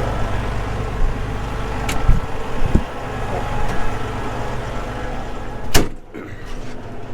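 Challenger MT965C tractor's engine idling, with a couple of clunks. Near the end a door shuts with a single loud slam, and after it the engine is heard only faintly, as from inside the closed cab.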